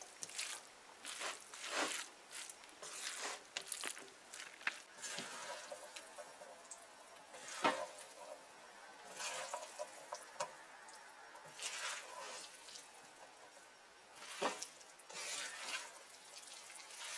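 Plastic spatula stirring and tossing casareep-coated chow mein noodles in a wok: soft, irregular scrapes and wet slaps.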